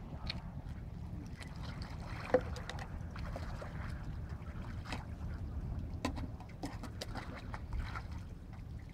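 Wind rumbling on the microphone over small splashes and knocks of water around a diver floating at the dock's edge, with one sharp knock about two and a half seconds in.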